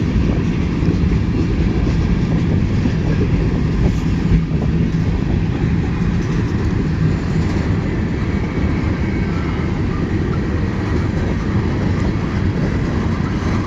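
Cars of a long mixed freight train rolling past close by: a steady, loud rumble of steel wheels on the rails.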